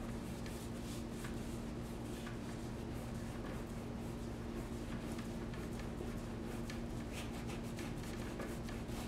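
Paintbrush working wet acrylic paint across a stretched canvas: faint, scratchy rubbing strokes over a steady low hum.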